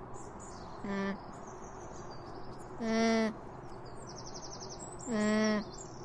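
An alpaca humming: three short, nasal, pitched hums about two seconds apart. Small birds twitter faintly behind it.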